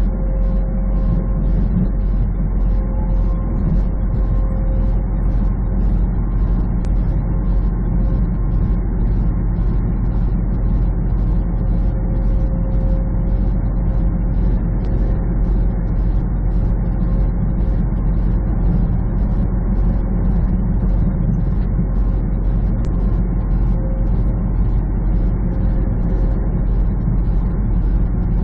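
Semi truck cruising at highway speed, heard from inside the cab: a steady low engine drone mixed with tyre and road noise.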